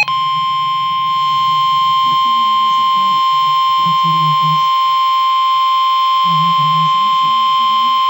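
NOAA Weather Radio receiver sounding its 1050 Hz warning alarm tone: one loud, steady high tone without a break. The tone signals that a warning, here a severe thunderstorm warning, is about to be broadcast.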